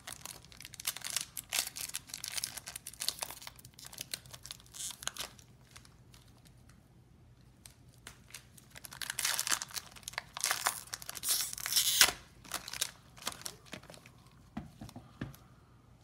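Foil trading-card pack wrapper crinkling and being torn open by hand, in crackly spells: a busy stretch at the start, a few quiet seconds, then a louder, denser spell past the middle, with a few light clicks of cards being handled near the end.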